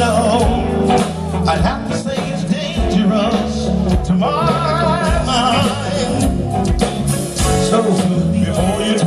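A live band performance: a man sings into a handheld microphone over the band's keyboards, drums and guitar, holding one long note with vibrato about four seconds in.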